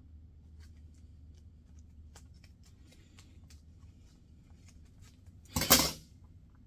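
Hands unpacking a reptile shipping box: scattered light clicks and rustles, then one loud noisy rustle or tear lasting about half a second, about five and a half seconds in.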